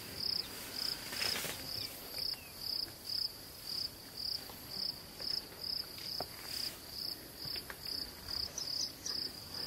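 An insect chirping steadily: a high-pitched chirp repeated evenly, a little over two times a second.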